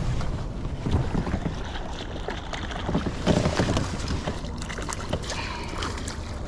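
Steady wind rumble on the microphone, with scattered light knocks and some water noise, while a small hooked bass is reeled in.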